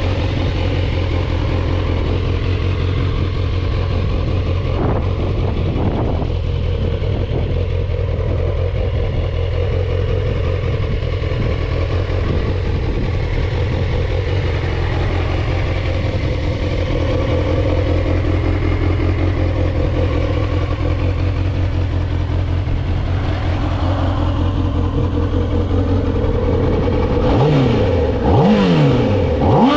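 2008 Kawasaki ZX-10R's inline-four engine idling steadily. Near the end the throttle is blipped about three times, each rev rising and falling quickly.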